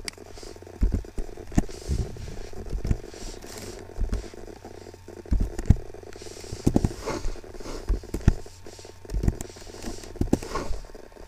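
Computer keyboard keys being typed, irregular clicks and knocks a fraction of a second to a second apart, over a steady low hum.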